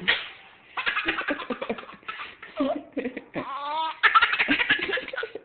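A baby laughing in repeated fits of rapid, high-pitched giggles broken by squeals that rise and fall in pitch.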